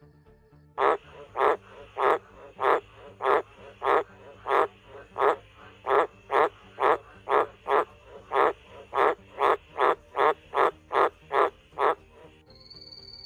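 A frog croaking in a steady series of about eighteen short, evenly spaced calls, a little over one a second, which stop about a second before the end.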